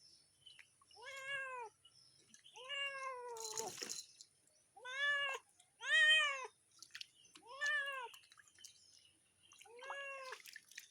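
Domestic cat meowing repeatedly while being bathed: six drawn-out meows, one every one to two seconds, the second one longest. A brief splash of water about three and a half seconds in.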